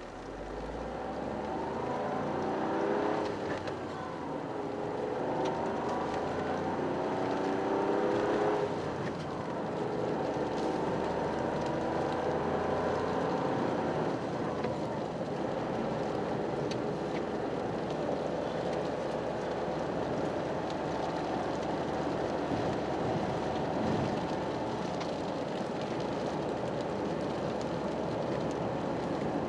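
Toyota GR Yaris's turbocharged 1.6-litre three-cylinder engine accelerating through the gears. The pitch climbs and drops at upshifts about 3 and 8 seconds in, then settles to a steady cruise over road noise.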